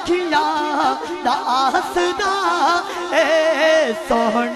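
A man singing a Punjabi naat into a microphone, in long, ornamented lines with wavering pitch, holding one note for most of a second about three seconds in before letting it fall.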